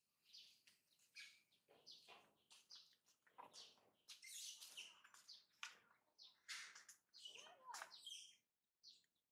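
Faint bird chirps from the surrounding trees: many short, high calls scattered throughout.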